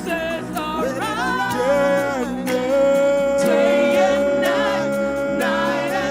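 Worship music: a singer's voice rising and falling in a slow melody, then holding one long note for about three seconds, over steady sustained backing chords.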